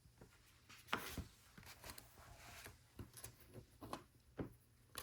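Faint clicks and rustling of LEGO plastic pieces being handled and sorted, with a sharper click about a second in and another a little before the end.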